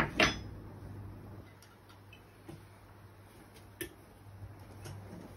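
A metal canning lid and tools clinking on a table as the lid is set on a glass jar: two sharp clicks at the start, then scattered light ticks, over a faint steady low hum.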